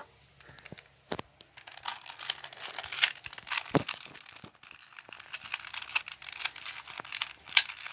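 A 2x2 V-Cube 2 puzzle cube being scrambled by hand: a quick, irregular run of plastic clicks and clacks as its layers are turned, with a few sharper snaps about a second in, near four seconds and near the end.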